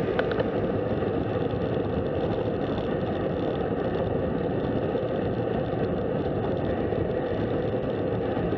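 Steady rush of wind over the microphone of a handlebar-mounted camera on a road bike riding at speed, with the hum of tyres on asphalt.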